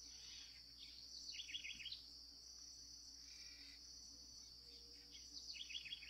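Faint, steady high-pitched insect trilling, with a quick run of faint bird chirps a little over a second in and another near the end.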